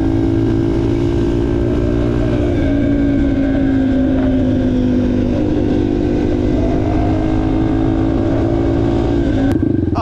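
Yamaha TTR230 dirt bike's single-cylinder four-stroke engine running at a nearly steady speed with small rises and dips in pitch.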